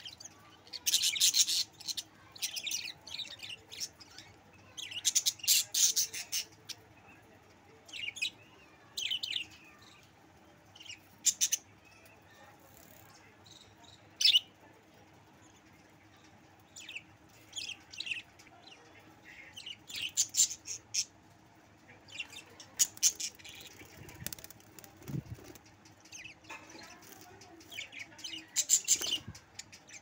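A flock of budgerigars chirping in clusters of quick, high-pitched chirps, with short quiet gaps between the bursts.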